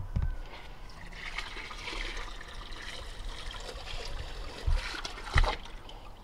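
Water from a garden hose trickling and splashing into a shallow inflatable pool. Two short thumps come late on, louder than the water.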